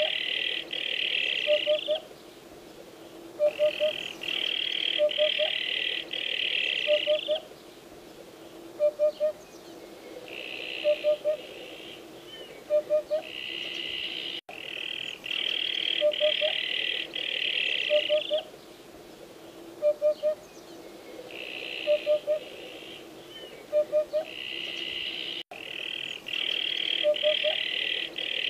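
Eurasian hoopoe singing its low, hollow 'oop-oop-oop' song: groups of three short hoots repeated about every two seconds. A high, rasping buzz comes in bursts of about two seconds between the hoot groups.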